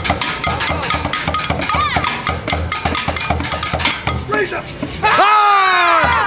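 Upbeat music with a steady drum beat and voices over it. About five seconds in, the beat drops out under a loud, held note with many overtones that slides down in pitch and lasts about a second.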